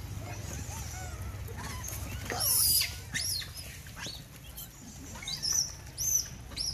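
Rhesus macaques squealing as they crowd and squabble over food: a string of short, high, rising-and-falling squeals, with one loud harsh screech a little over two seconds in.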